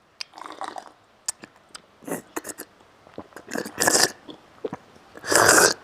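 A man drinking water from the far rim of a glass while bent forward, the hiccup-cure method: small sips, clicks and swallowing sounds, with two louder rushing noises, one in the middle and one near the end.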